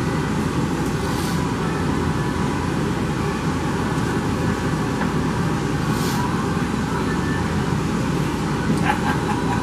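Steady rushing background noise that does not change, with two faint brief scuffs, about a second in and about six seconds in.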